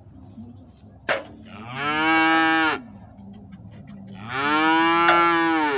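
A six-month-old calf mooing twice, two long calls that each rise a little and fall in pitch, preceded by a sharp click about a second in.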